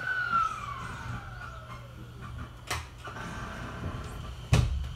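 A JR 209 series electric train's motor whine, heard from inside the car, sliding down steadily in pitch over about two seconds under a low running rumble. Two sharp knocks from the wheels and running gear come near the middle and near the end, the second the louder.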